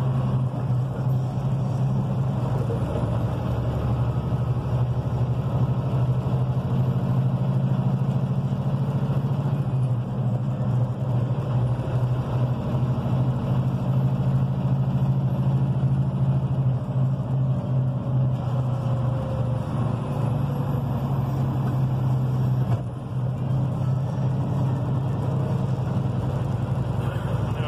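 Steady engine drone and road noise inside the cab of a truck cruising down the highway, with a brief dip in loudness near the end.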